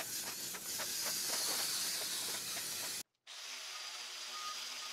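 CRC rust converter aerosol can spraying onto a rusty cast-iron drill press base: a steady hiss that stops abruptly about three seconds in.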